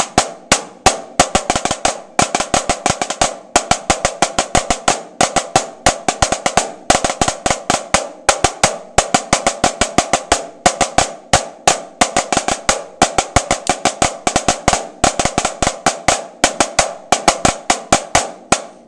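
Two snare drums played together in unison: a rudimental snare solo at a slow practice tempo, steady sticked strokes broken by short rolls and accents.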